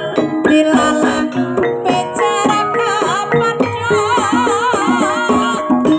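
Javanese Banyumasan gamelan playing: struck bronze metallophones and gongs ringing in a steady pattern of pitched notes, driven by a kendang hand drum. From about halfway through, a sinden (female singer) holds a long line with a wide, wavering vibrato over the ensemble.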